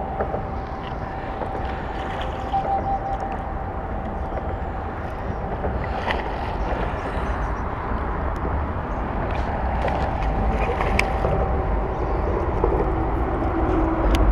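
Wind rumbling on the microphone over a steady low hum of city traffic, growing slightly louder toward the end. A faint steady whine runs through the first half, with a few light clicks.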